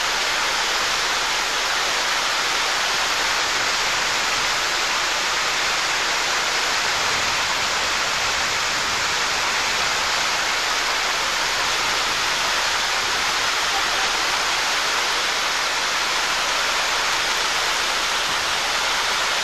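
Water rushing over a small waterfall in a stream: a steady, even roar of falling and churning water with no breaks.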